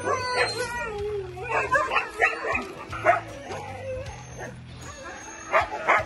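Huskies whining and howling with a wavering pitch in the first second, then a run of short yips and barks.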